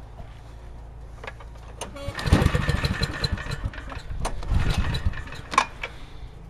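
Small generator engine being restarted after stalling, firing roughly in two short sputtering bursts, about two seconds in and again about four seconds in.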